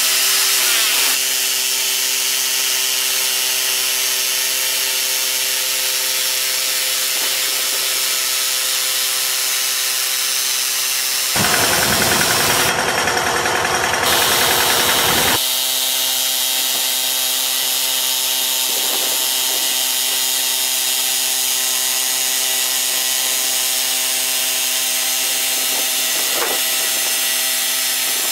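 Portable bandsaw mill running: its engine drones steadily as the band blade saws through a log, with small dips in pitch now and then and a louder stretch of about four seconds midway.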